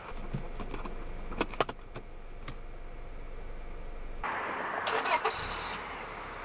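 Car sounds: a low hum with a few sharp clicks, then, about four seconds in, a sudden loud rush of noise from the car lasting a second and a half, with the engine starting.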